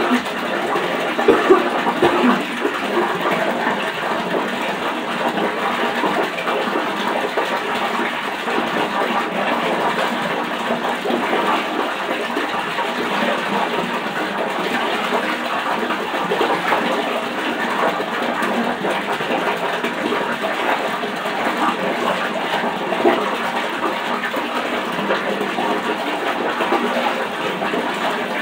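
Water running steadily in a bathroom, an even, unbroken rush, with a couple of brief louder knocks about two seconds in.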